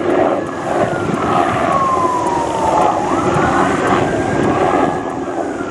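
A wailing siren, one tone sliding slowly down in pitch, sweeping back up about halfway through and starting to fall again near the end, over the steady noise of a Black Hawk-type military helicopter flying by.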